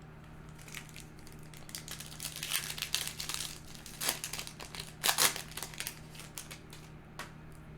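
Foil booster pack of Yu-Gi-Oh! cards being crinkled and torn open, a run of irregular crackling rustles, loudest about five seconds in.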